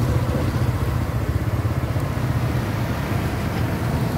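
An electric fan mounted over a charcoal grill, running with a steady low hum.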